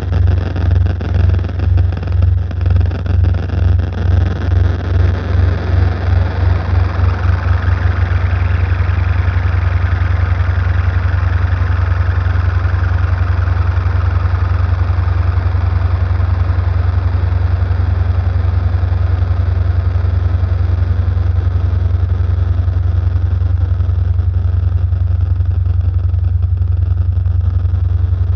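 Electronic drone soundtrack: a deep, engine-like bass drone pulsing faster and faster until the pulses blur into a steady hum about eight seconds in, under a hiss-like noise layer. A brighter swell rises and then fades away over the middle of the passage.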